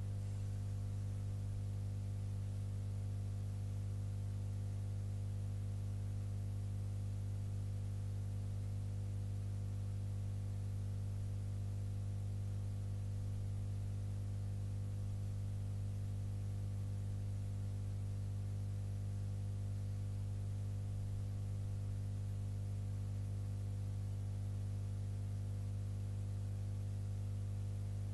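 Steady low electrical hum with many overtones and a faint hiss underneath, unchanging throughout.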